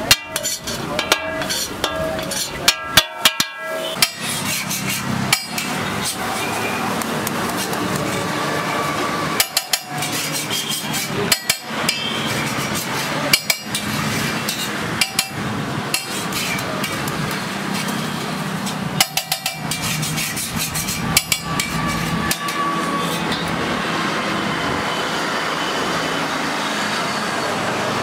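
Metal spatula clanking and scraping against a flat iron griddle and a steel plate, in clusters of sharp knocks: several in the first few seconds, more around a third of the way in and again about two thirds in, over steady background noise.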